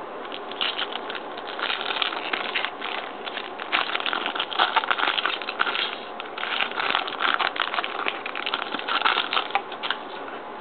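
Trading-card pack wrappers crinkling and crackling in the hands as packs are torn open and cards slid out, in uneven clusters, loudest a few seconds in and again near the end.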